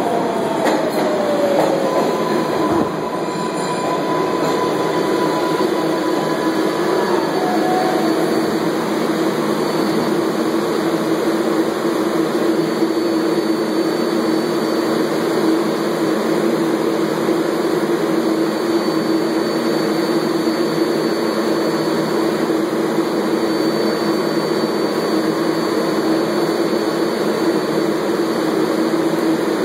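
Kawasaki R142A subway train pulling into the station, its motor whine falling in pitch as it brakes in the first couple of seconds, then a steady hum and rumble as it stands at the platform.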